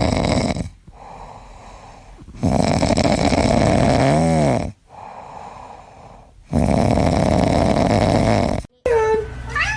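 Loud snoring from a sleeping pet: three long noisy breaths with quieter pauses between, and a brief whistling note in the middle of the second one.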